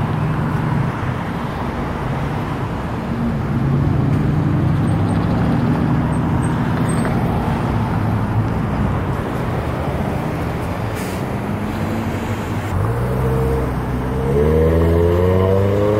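Road traffic passing and turning through an intersection close by, with a steady engine rumble. Near the end one vehicle's engine rises in pitch as it accelerates away.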